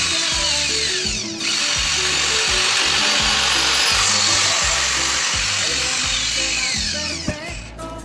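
Background electronic music with a steady bass beat and melody, under a bright hissing layer with falling sweeps that drops out briefly about a second in and again near the end.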